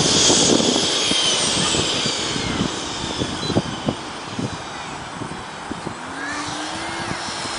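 Mini T-28 foam radio-control model airplane's motor, a high whine that drops in pitch and fades over the first few seconds as the plane flies past and away. Gusty wind buffets the microphone throughout.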